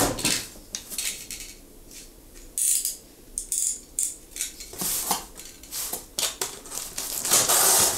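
Hands handling a mailed parcel of CDs: a scattered series of small clicks and knocks, with several short scraping, rustling bursts of packaging.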